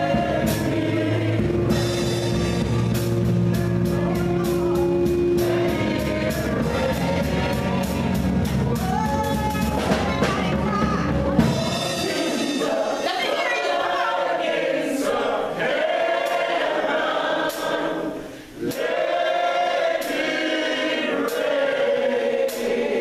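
Gospel group singing into microphones over a live band with a deep bass line; a little before halfway the bass and band drop away and the voices carry on nearly alone.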